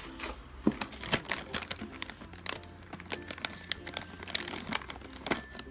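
Plastic dog-treat bag crinkling as it is handled, a run of irregular sharp crackles.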